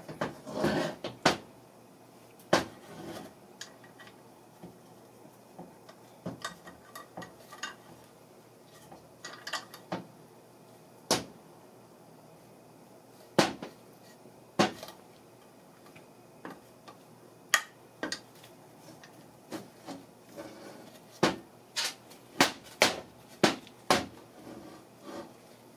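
Metal engine parts clinking and knocking as they are handled: a Briggs & Stratton vertical engine's crankshaft and block being fitted together and turned over on a workbench. There are irregular sharp clicks with pauses between them, a short scrape at the start and a run of quick knocks near the end.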